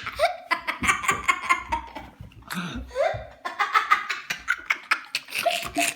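Hearty laughter in rapid, repeated bursts with giggles, breaking off briefly about two seconds in.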